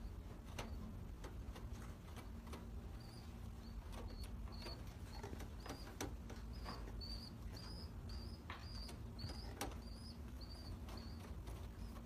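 Pigeon squab's thin, high begging squeaks, about two a second, starting about three seconds in, while an adult pigeon feeds it beak-to-beak, with faint clicks and rustles from the pair in the nest.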